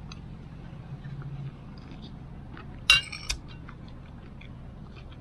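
A metal spoon clinking against a plate while eating: two sharp clinks close together about three seconds in, with a few faint taps around them. A low steady hum stops about a second and a half in.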